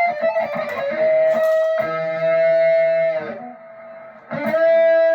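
Electric guitar, a Squier Classic Vibe '50s Stratocaster partscaster with Wilkinson single-coil pickups, being played: a quick run of notes, then a long held note, a brief pause, and another long held note. Its owner finds the single coils' high end a little brittle, weak and thin.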